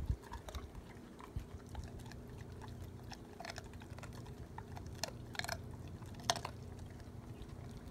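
German Shepherd chewing a raw chicken drumstick: irregular wet crunches of bone, with a few sharper cracks in the second half.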